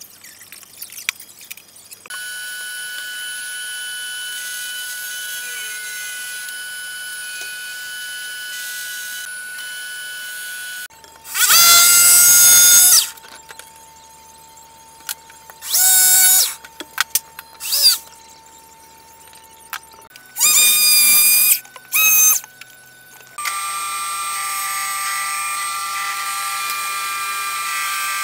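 Power saws cutting plywood: a steady motor whine, then several short, very loud cutting passes with a high squeal, then the whine again.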